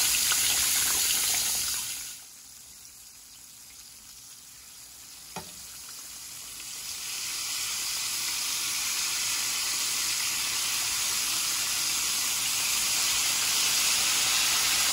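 Floured chicken wings frying in hot oil in a skillet, a steady sizzling hiss. It drops away sharply about two seconds in, a single click comes a few seconds later, and then the sizzle builds back up and stays loud.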